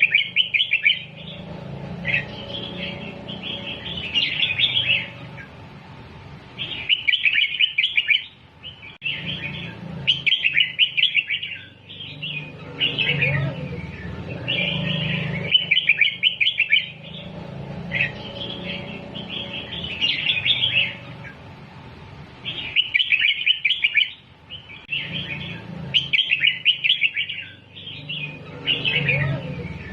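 Red-whiskered bulbul singing short, bright, warbled phrases, repeated about every two to three seconds, song of the kind played to teach young bulbuls.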